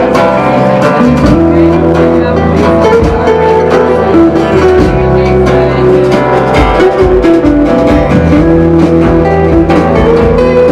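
Live band playing a song on guitars and bass, with strummed guitar chords over sustained low bass notes and no singing.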